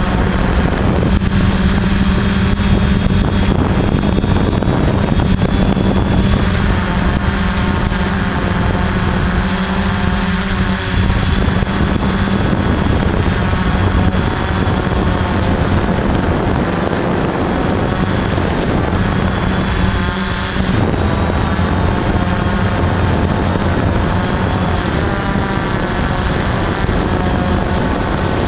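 Electric motors and propellers of a radio-controlled camera drone, heard close up from its onboard camera: a steady buzzing drone with small shifts in pitch as it holds position, and one brief dip about two-thirds of the way in.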